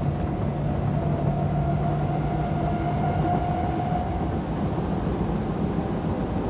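Osaka Metro 22 series subway car running between stations, heard from inside the car. A steady rumble of running noise carries a low hum and a held whine.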